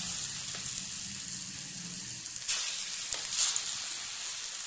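Small punugulu made from vada batter deep-frying in hot oil in an aluminium kadai: a steady sizzle with brief louder crackles about two and a half and three and a half seconds in.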